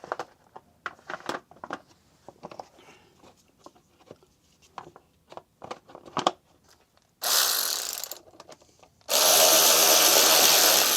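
Light clicks and knocks of parts being handled, then a power tool runs twice: a burst of about a second, then a louder steady run of about two seconds.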